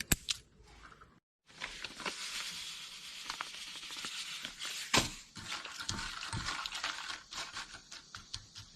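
Crayfish shells being handled and cut along the back with a knife: crackling and clicking, with one sharper click about five seconds in.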